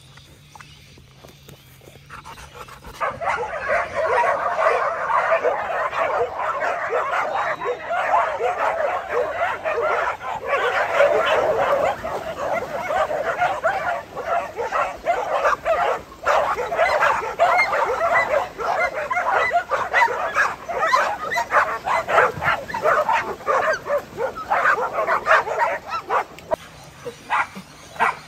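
A large pack of dogs barking and yipping together, many voices overlapping in a continuous din, starting abruptly about three seconds in.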